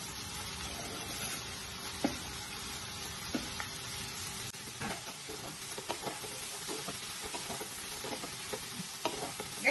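Shredded cabbage and mixed vegetables sizzling in butter in a non-stick pan while being stirred with a wooden spatula. The spatula knocks and scrapes against the pan, more often in the second half.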